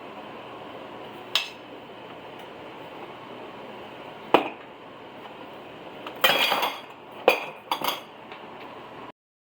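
Kitchen utensils and dishware knocking and clinking: a few sharp single clicks, then a louder rattling clatter about six seconds in and two more knocks after it, over a steady background hum.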